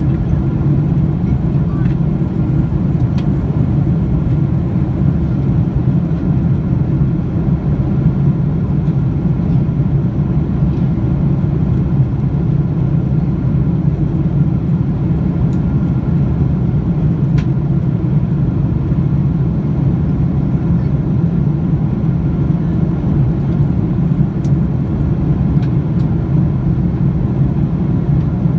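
Steady cabin noise of a Boeing 777-300 in flight, heard beside its Rolls-Royce Trent turbofan: an even, loud low hum of engine and airflow noise with a faint steady high tone over it.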